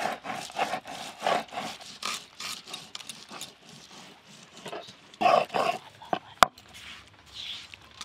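Scraping and knocking of kitchen work: spice paste ground on a stone slab with a stone roller, and onions sliced on a curved blade. About five seconds in come two short animal calls, then a single sharp click.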